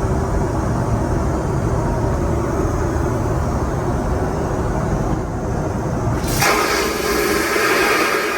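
Steady low rumble of an airliner's cabin and engine noise heard inside its lavatory. About six seconds in the rumble gives way to a loud hissing rush that carries on.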